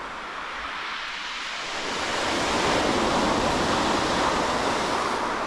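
Sea surf breaking and washing on a shingle beach, the wash swelling up about two seconds in.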